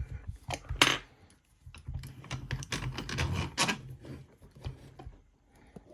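Irregular clicks and small metallic rattles of a padlock and lockpicking tools being handled and set up on a bench, thickest from about two to four seconds in.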